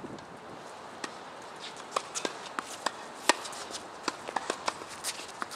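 Tennis rally on a hard court: a string of sharp pops from rackets striking the ball and the ball bouncing, with the loudest strike a little past the middle.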